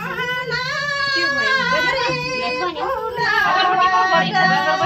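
A group of women singing a Tharu Astimki (Krishna Janmashtami) folk song together, their voices carrying the melody with no break.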